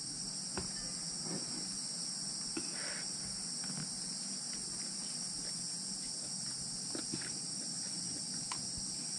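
Night insect chorus, crickets and similar, keeping up a steady high-pitched trill.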